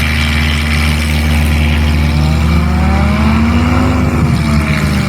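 Light STOL aircraft's propeller engine running loud at high power, its pitch rising and then falling as it goes by.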